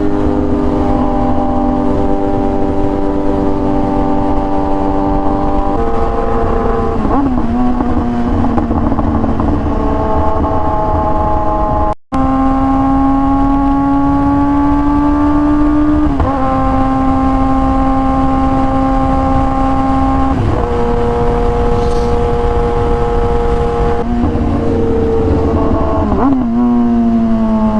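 Kawasaki ZX-10R inline-four engine running at highway speed. It holds steady revs for stretches, with several sudden shifts in pitch as the throttle and gears change, and its revs fall near the end. A heavy low wind rumble runs underneath, and the sound drops out briefly about twelve seconds in.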